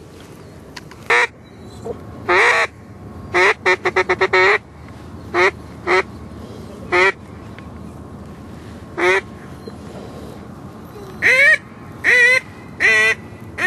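Duck call blown to bring a circling duck in to land: loud, nasal quacks with a wavering pitch. It starts with single quacks and a longer one, then a quick run of about six short quacks, several spaced single quacks, and three longer, wavering quacks near the end.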